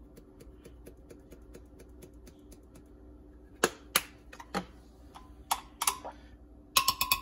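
Light, quick ticking as ground cinnamon is tapped out onto a long metal spoon, then a metal spoon clinking against a glass blender jar: a few separate clinks, then a fast run of loud ringing clinks near the end as it stirs the mix.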